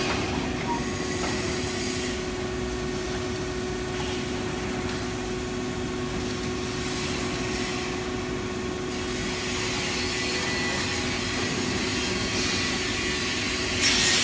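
Steady hum of electric machinery running, holding a constant pitch, with a short louder hiss near the end.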